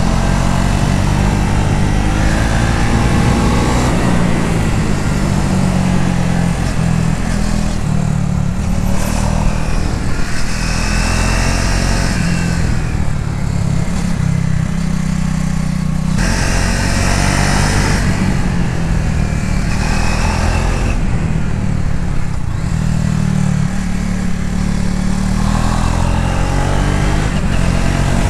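Triumph Speed 400's single-cylinder engine running under way, its note rising and falling as the throttle opens and closes.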